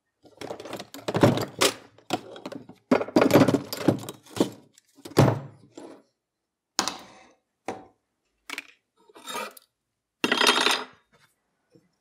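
Irregular knocks, clunks and clinks of tools and metal handled on a steel workbench. They come thick for the first five seconds or so, then as separate shorter knocks, with a longer clatter near the end.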